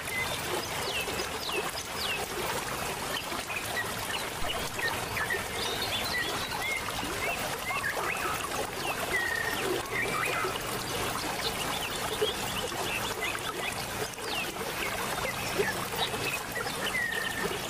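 Steady rush of water from a small waterfall, with birds chirping and whistling short calls throughout.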